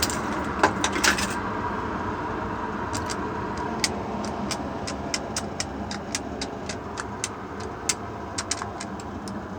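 Steady rumble of background traffic, with light sharp clicks scattered throughout: the loudest two come about half a second and a second in, then a couple a second from about three seconds in.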